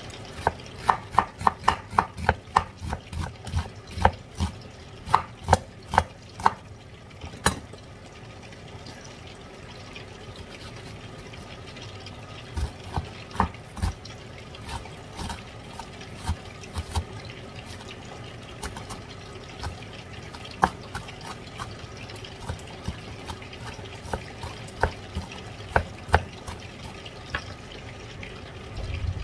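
Chef's knife cutting a red onion on a bamboo cutting board: a quick run of sharp knife taps on the board, about two a second, for the first seven seconds or so, then scattered single taps after a short lull while the onion is diced.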